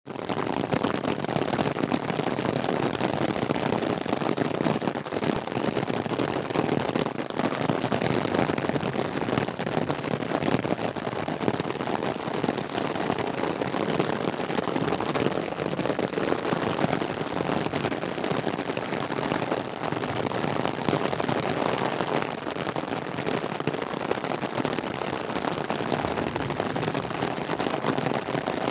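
Heavy rain falling steadily: a dense, even patter of drops that holds without let-up.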